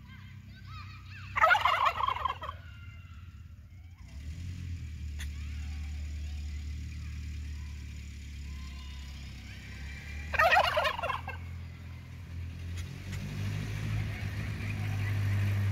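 A tom turkey gobbling twice, about a second and a half in and again about ten seconds in, over the low, steady running of a small farm tractor's engine that grows louder near the end as the tractor approaches.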